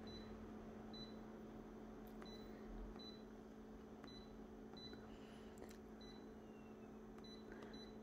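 Touch-panel key beeps of an office multifunction copier: a series of short, high, single-pitched beeps, roughly one a second, as its touch screen is tapped, over the machine's faint steady hum.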